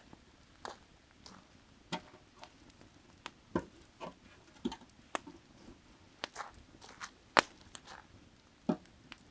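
Firewood burning, crackling with irregular sharp pops, the loudest about seven seconds in.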